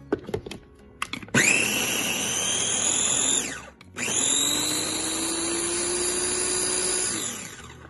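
Small electric food chopper grinding a coarse masala paste of onion and coconut, in two pulses. A few clicks as it is handled, then the motor whines up and runs for about two seconds, spins down, and runs again for about three seconds before winding down.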